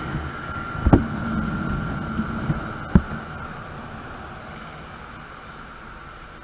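Wind and road noise of a moving motorcycle, picked up by a camera on its handlebars, with a steady high hum that fades out after a few seconds. Two sharp knocks, about a second and three seconds in, are the loudest sounds.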